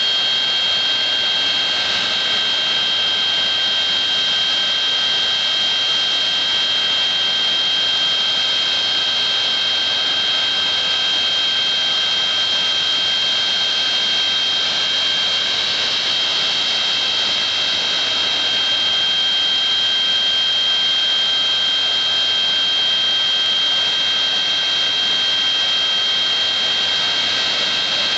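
Boeing 737-200's Pratt & Whitney JT8D jet engines idling on the ground: a steady rush with a strong, steady high-pitched whine over it, neither rising nor falling.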